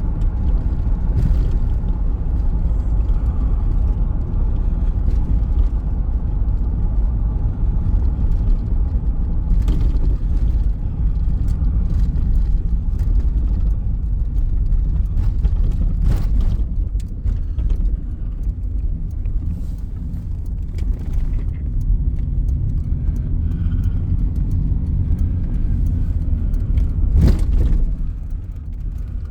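Car on the move: a steady low engine and road rumble with a few scattered knocks.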